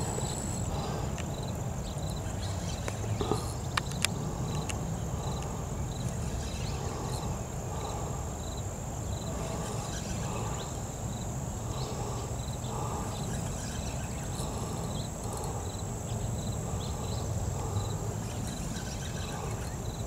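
Riverbank ambience: a steady low rumble with a steady high whine and faint high chirps repeating at an even pace, broken by a couple of sharp clicks about three to four seconds in.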